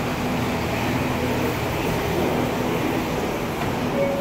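An R179 subway train standing in the station with its doors open: a steady hum of its air-conditioning and onboard equipment, with a low steady tone running through it. Right at the end, the first note of the door-closing chime begins.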